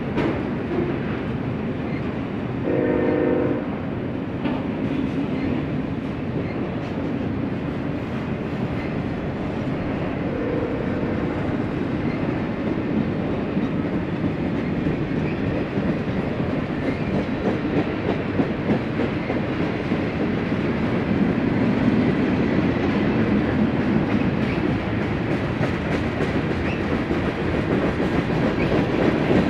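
Freight cars of a long mixed freight train rolling steadily past, a continuous noise of wheels on rail that grows a little louder after about twenty seconds. About three seconds in, a short horn blast of about a second sounds over it.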